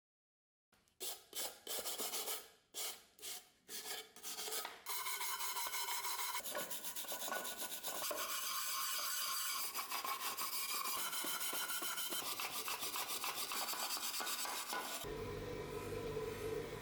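Rasping, scraping strokes of hand abrasion on a workpiece: a handful of separate short strokes, then fast continuous scraping. Music comes in near the end.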